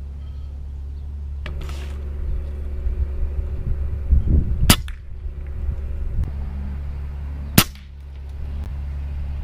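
Two shots from a moderated .22 Umarex Gauntlet 2 PCP air rifle, each a short sharp crack, about three seconds apart, over a steady low hum.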